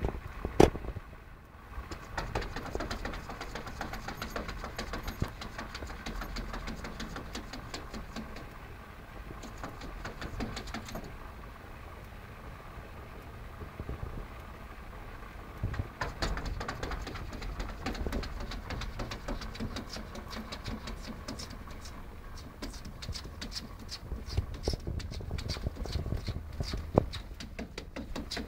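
Cats clashing through a glass door: a sharp knock against the glass about half a second in, then repeated clicks and scrapes of paws and claws on glass, over a steady low rumble.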